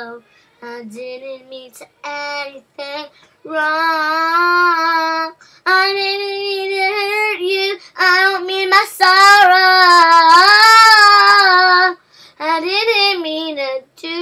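A young girl singing unaccompanied, in phrases with several long held notes; the loudest, from about nine to twelve seconds in, wavers in pitch.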